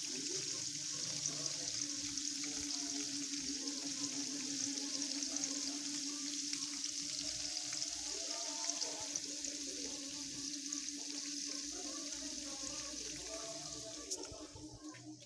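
Cubes of tofu deep-frying in hot oil in a wok, a steady hissing sizzle, with a steady low hum underneath. Both fade near the end.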